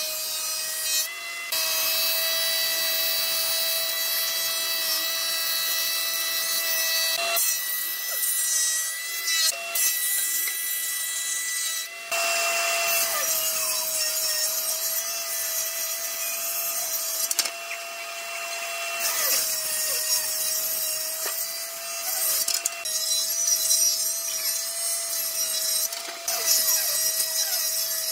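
Power wood planer running, its cutterhead shaving boards as they feed through: a steady high machine whine under a continuous rushing, hissing cut, with a few abrupt breaks and changes in the noise.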